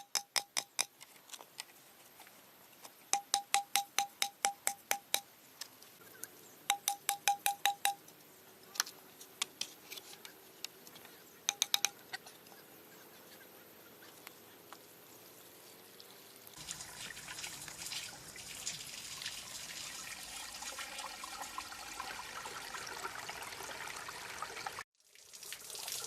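Several bursts of rapid, evenly spaced sharp taps, each with a slight ring. Then, from about two-thirds of the way in, a steady rush of pouring water that cuts off suddenly near the end.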